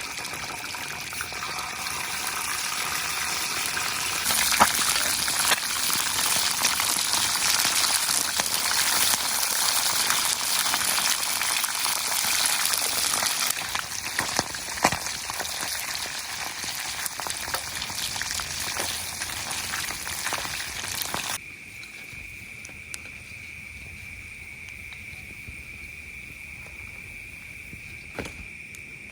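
A loud, steady rushing hiss of liquid that cuts off suddenly about 21 seconds in, with a few sharp clicks. Insects, such as crickets, keep up a steady high-pitched drone throughout and are left on their own near the end.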